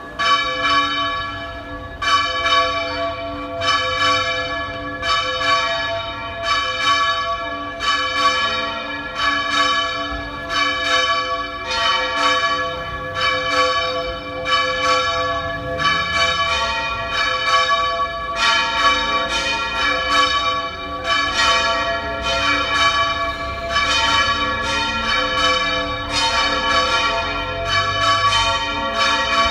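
Three church bells swinging full circle in the Valencian volteig style, strokes falling about once a second in an uneven, overlapping pattern while each bell's tone rings on. One of them, the 512 kg Benissants bell cast in 1910, is sounding with a new clapper.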